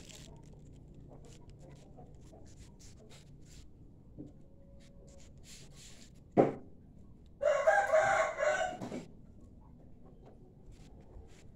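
A rooster crowing once, a single call of about a second and a half. A sharp knock comes about a second before it, and faint clicks of things being handled are heard throughout.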